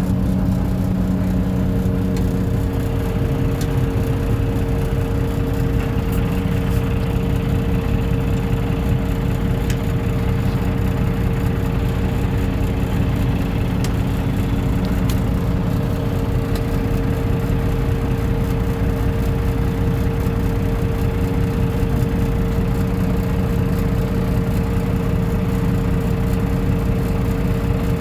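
Caterpillar 349 excavator's diesel engine running steadily, a deep rumble with a steady whine over it and a few faint ticks.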